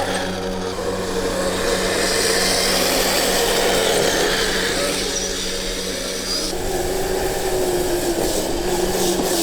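Kyosho Blizzard SR radio-controlled snowcat running: the electric motor and drivetrain whine steadily, the pitch wavering with the throttle, then dropping to a lower steady whine about two-thirds of the way through.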